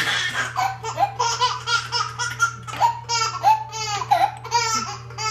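A baby laughing in a long run of short, high-pitched peals.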